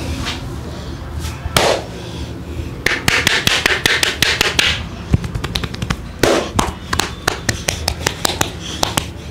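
Indian head massage: hands rubbing and gripping the hair and scalp, with swishes of rubbing and runs of quick, sharp crackling clicks from the hair cracking. A dense burst of crackles comes a few seconds in, then scattered single clicks after a second rub.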